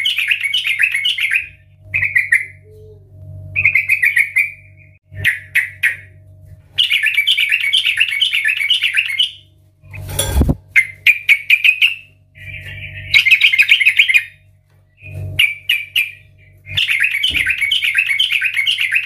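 Yellow-vented bulbul singing loudly: phrases of rapid chattering notes, each one to two and a half seconds long, repeated with short pauses. A single sharp knock about ten seconds in.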